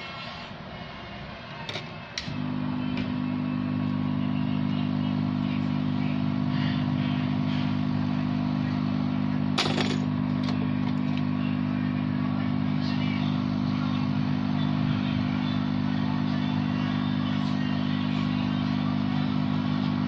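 Hot air rework station's blower switched on about two seconds in, then running with a steady hum. A sharp click sounds about ten seconds in.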